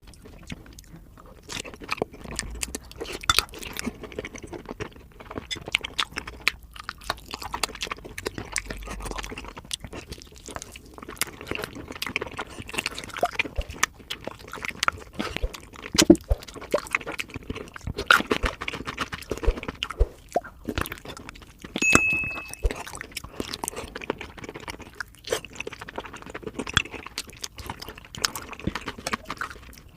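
Close-miked chewing and crunching of crispy fried chicken, played back sped up, so the bites and crackles come as a rapid, dense, irregular stream. A brief high-pitched tone sounds once about two-thirds of the way through.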